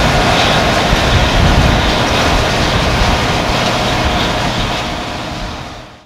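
Case IH combine harvester running as it cuts wheat: a loud, steady drone of engine and threshing machinery, fading out near the end.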